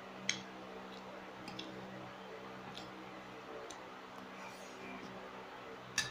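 Metal spoon clinking and scraping against a ceramic plate of fried rice while eating, a few sharp clicks, the strongest just after the start and near the end. A steady low hum runs underneath.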